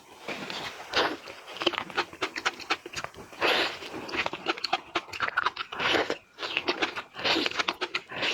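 Close-miked mukbang eating: a small lobster being bitten and chewed, with repeated crunchy, crackly bites in uneven bursts about once or twice a second.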